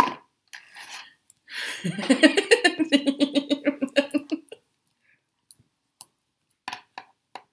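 A woman laughing for a couple of seconds, starting about two seconds in, in a quick run of short 'ha' pulses. Short clicks and rustles come from the tarot deck's wrapped box being handled before and after.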